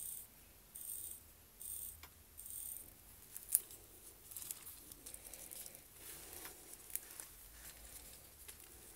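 Crown of a Corgeut automatic pilot watch being hand-wound: a short burst of fine ratchet clicking with each turn, about one a second, for the first few seconds. Then the watch, its leather strap and metal folding clasp are handled, with scattered small clicks and one sharp click about three and a half seconds in.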